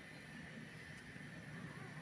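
Faint, steady background hum with no distinct event beyond one faint click about halfway through.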